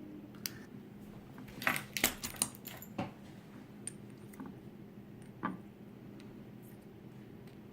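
Small metal clicks and clinks of lock parts and tools as a pin-tumbler lock is being taken apart, in a quick cluster about two seconds in and once more near the end.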